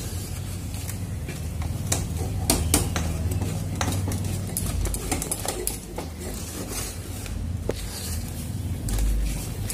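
A spatula scraping and knocking irregularly against a pan while stirring a thick, dough-like mixture of milk, sugar and flour, over a steady low hum.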